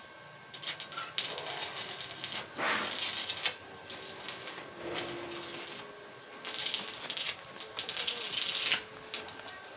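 Stick-welding arc from a Mitsushi 300S inverter welder crackling and sputtering irregularly as the electrode burns on steel, with louder bursts about three seconds in and again in the last few seconds. The welding rod has been around about a month and, he says, has gone bad.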